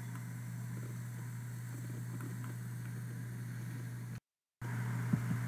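Steady low electrical hum with faint hiss from the recording's background noise. It cuts out to total silence for about half a second a little past four seconds in, then returns with a few faint clicks.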